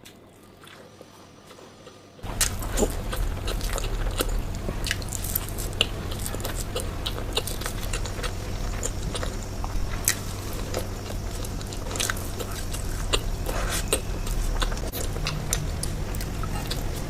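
Close-up sounds of someone biting and chewing an Indian sweet: many small crisp clicks and mouth noises over a low hum, starting about two seconds in after a quiet moment and stopping abruptly.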